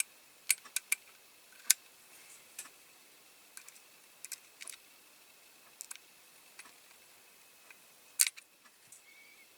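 Small metal parts and a screwdriver clicking and tapping against a diecast toy model during reassembly: scattered sharp clicks, the loudest about two seconds in and near the end.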